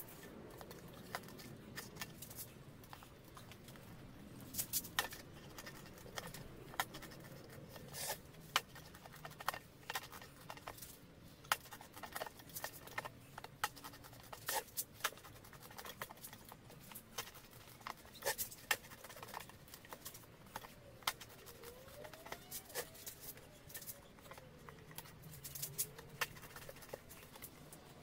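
A knife cutting through car tyre rubber, with irregular sharp clicks as the blade is worked along the sidewall.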